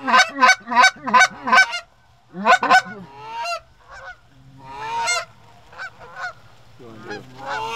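Canada goose honks and clucks in quick, loud runs. A fast string of calls opens, another short run follows about two and a half seconds in, then come scattered fainter calls and a final run near the end.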